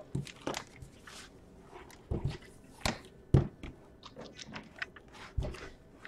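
Scattered light knocks and clicks of a Samsung 900X laptop being handled: lifted off a table and turned over in the hands, its casing tapping and rubbing. There are about half a dozen, the loudest a little past the middle.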